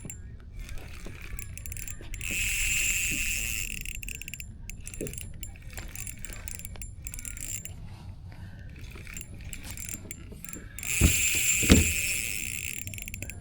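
Fishing reel's drag whirring as a large hooked fish pulls line off, in two runs: one about two seconds in and a louder one near the end, with a couple of knocks during the second.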